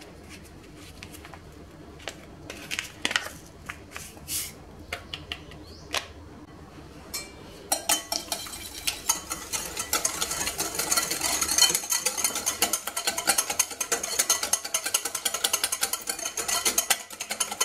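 Metal wire whisk beating eggs and sugar in a glass bowl: a fast, continuous clatter of wire against glass that starts about eight seconds in. Before that, a few scattered light taps.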